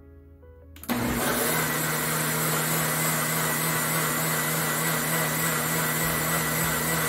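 A Ninja countertop blender's motor starts up about a second in and runs steadily at speed, puréeing a chunky barbecue-sauce mixture: a loud, even whir with a steady low hum whose pitch settles just after start-up.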